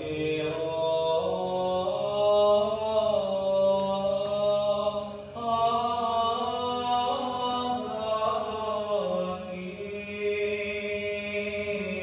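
Chanted vocal music: voices holding long notes over a steady low drone, the melody moving to a new note every second or two.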